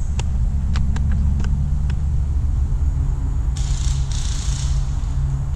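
Low steady rumble of wind and handling noise on the camera microphone, with a few light clicks in the first two seconds and a short rustling hiss about three and a half seconds in.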